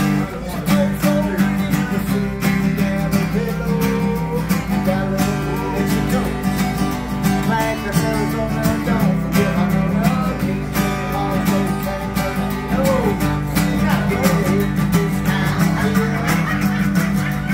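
Two acoustic guitars strummed together live, a steady rhythmic strumming accompaniment.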